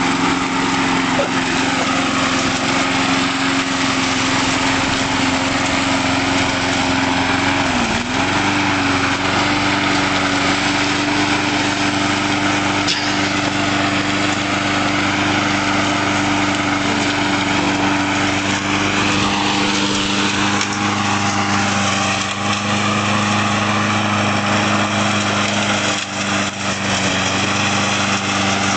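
Small lawnmower engine running steadily at high revs on pure ethanol fuel. Its pitch dips for a moment about eight seconds in and recovers, and the sound dips briefly again near the end.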